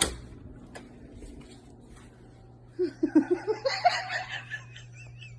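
A sharp click, then about three seconds in a short burst of rapid, rising laughter over a steady low hum.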